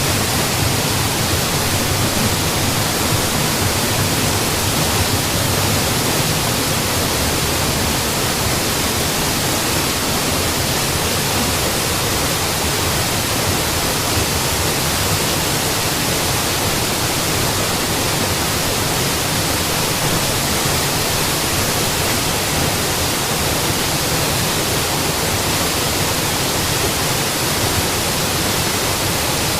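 Waterfall rushing as a steady, unbroken roar of falling water.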